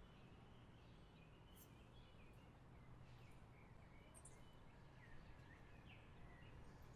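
Near silence: faint steady background hiss with a low hum, and a few faint short high chirps scattered through it.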